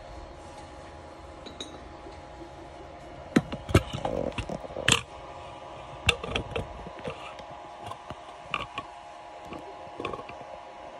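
Handling noise: the phone and the opened 3D printer's plastic casing being moved and knocked, a string of sharp clicks and knocks that starts a few seconds in, the loudest soon after. Under it runs a steady hum.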